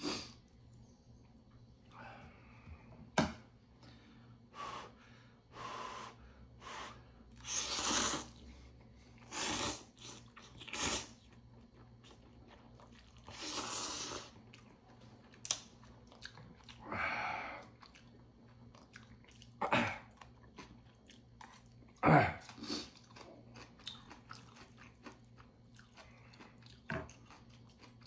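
A person slurping and chewing instant ramen noodles in spicy broth: a run of wet slurps, some lasting about a second, with chewing between them. A few sharp clicks of metal chopsticks on the dishes come in between, the loudest about three seconds in and about twenty-two seconds in.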